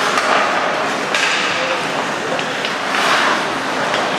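Ice hockey play: skate blades scraping across the ice in swells, with several sharp clacks of sticks and puck.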